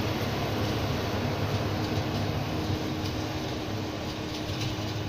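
Plasser & Theurer SMW-15 track maintenance machine running on the rails: a steady engine drone with a low hum and a constant tone above it, getting slowly quieter.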